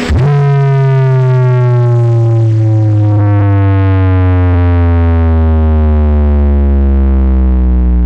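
A big sound system's 21-inch SPL Audio booster subwoofer boxes playing one long synthesized tone. It starts abruptly and slides slowly and steadily down in pitch into deep bass, very loud.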